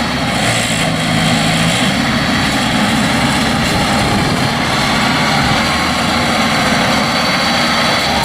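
Rice combine harvester running steadily under load while cutting rice, its diesel engine and threshing machinery making a loud, even drone.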